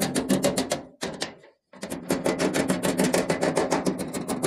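Rapid hammer taps on a galvanized steel flue-pipe elbow, about seven a second, striking around the cut tabs at its base. The tapping stops briefly about a second in, then starts again.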